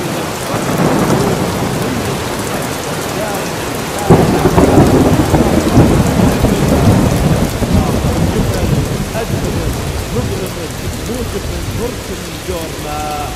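Thunder rumbling over steady rain, with a louder peal about four seconds in that rolls on and slowly dies away.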